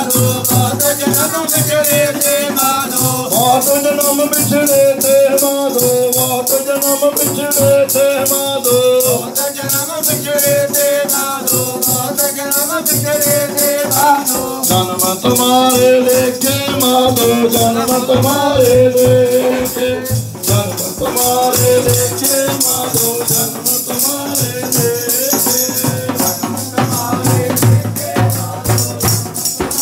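Devotional hymn sung by voices over a steady beat of jingling, rattling hand percussion.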